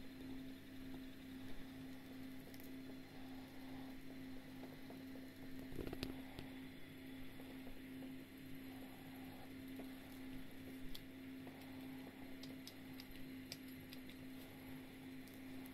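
Faint steady hum of a battery-powered LED spinner toy's small electric motor, spinning its LED balls on ribbons at speed. A handling knock comes about six seconds in, and a few light clicks follow later.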